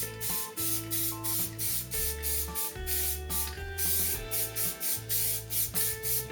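Background music: sustained bass and keyboard-like notes changing about once a second over a steady, hissy hi-hat-like beat of about three to four strokes a second.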